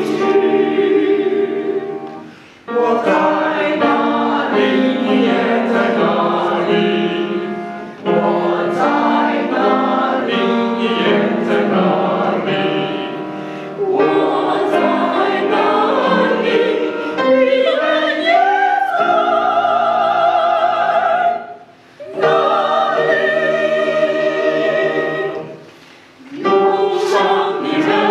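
A mixed choir of women's and men's voices singing together, in long held phrases with brief pauses between lines.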